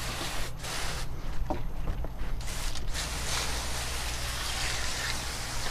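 Garden hose spray nozzle spraying water onto a fish-cleaning table, rinsing off fish scales; the hiss of the spray gets louder about three seconds in.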